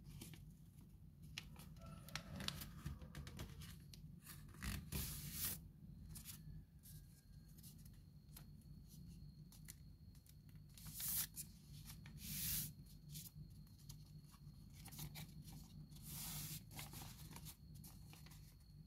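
Folded paper rustling and crinkling as it is handled and creased by hand, in many short bursts with a few louder, longer crinkles spread through.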